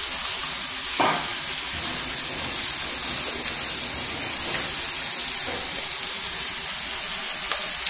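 Ground beef cooking in a pan with tomato juice, sizzling with a steady hiss, with a short knock about a second in.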